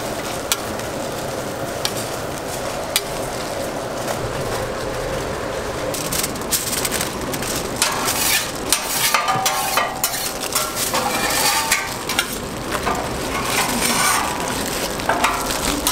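Flat-top griddle sizzling with a few light clicks, then from about six seconds in, aluminium foil crinkling and rustling as it is folded around a burger by gloved hands.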